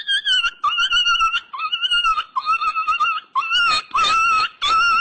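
An animal whining in a high, whistle-like voice, repeated as a string of short notes, each sliding up in pitch as it starts.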